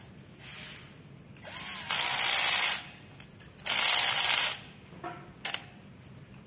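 Cordless drill-driver running in two bursts of about a second each, spinning up and driving a small screw into a metal clamp tab on a bearing sleeve. A few sharp clicks come between and after the bursts.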